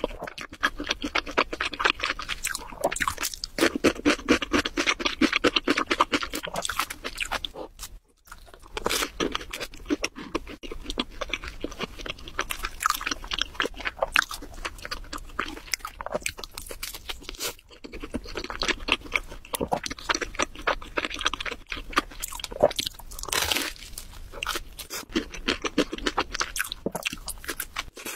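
Close-miked crunching and chewing of crusty deep-dish pizza, a dense run of crackly bites that drops out briefly twice.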